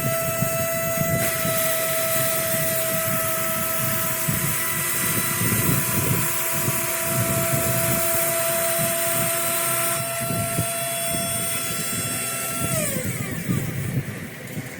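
Motors of a 3D-printed CNC farming machine running during seeding: a steady whine over hiss that holds one pitch, then falls and stops about 13 seconds in.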